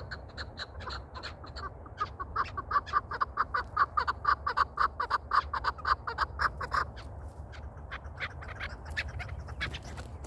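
Chukar partridges calling: a rapid run of clucking "chuk" notes, about five a second, loudest from about two seconds in until near seven seconds, then a few scattered softer notes.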